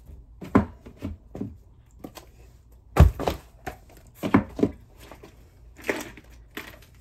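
Loud commotion of things being handled and set down while tidying a room: an irregular run of knocks and thuds, the loudest about three seconds in.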